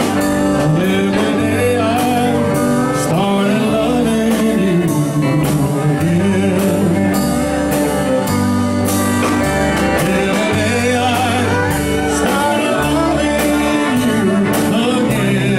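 Live country band playing a slow song with electric guitars, keyboard, bass and drums to a steady beat, and a male voice singing over it.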